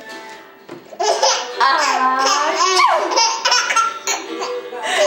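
Baby laughing hysterically, breaking into long squealing belly laughs about a second in that rise and fall in pitch.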